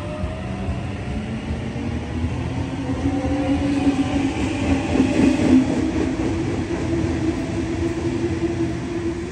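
Sydney Trains Waratah double-deck electric train moving along the platform: a steady rumble of wheels on rail with the whine of its traction motors, rising slowly in pitch at first and then holding. It is loudest about five seconds in as the carriages pass closest.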